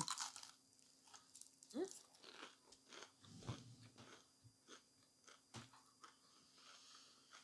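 A person chewing food close to the microphone: quiet, irregular crunches and mouth clicks. About two seconds in there is a brief falling hum.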